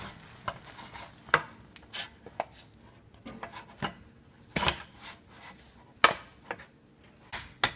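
Wooden spoon stirring and beating a stiff choux pastry dough in a metal saucepan: irregular knocks and scrapes of the spoon against the pot, the loudest about halfway through, as the dough comes together into a ball.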